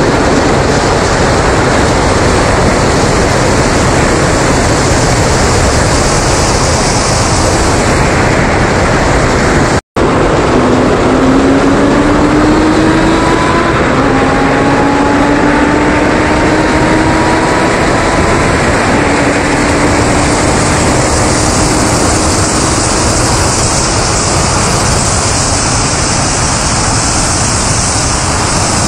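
Loud wind rush and road roar on a camera mounted outside a car at highway speed under hard acceleration. From about ten seconds in, an engine note rises through three gear pulls, each broken by an upshift. The sound drops out for a split second just before the first pull.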